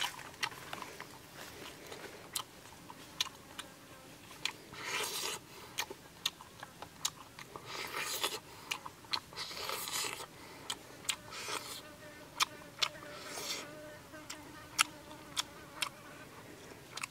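Close-up eating sounds of a person biting into a piece of cooked black chicken: many sharp lip smacks and clicks of chewing, tearing meat from the bone, with a few longer sucking noises about five, eight and ten seconds in. A faint steady hum runs underneath.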